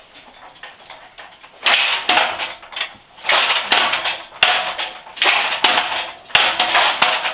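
Metal scraping and grinding as the top of a giant hexapod robot is swiveled back and forth on its large homemade central ball bearing, in a string of irregular strokes starting about one and a half seconds in. The bearing is stiff and not yet fully greased; the builder suspects something is rubbing.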